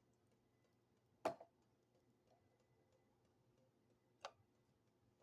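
Near silence: quiet room tone with faint, even ticking, broken by two short knocks about three seconds apart, the first louder.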